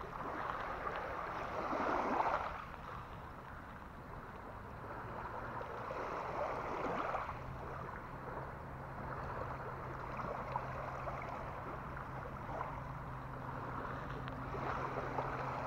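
Small waves lapping at the water's edge on a gravel lakeshore, swelling now and then, with a faint steady low hum that comes in about halfway through.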